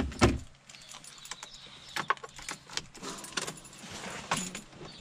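Irregular metallic clinks and rattles, jangling like keys, with two sharp knocks right at the start, over the steady low hum of the Scania truck's running diesel engine.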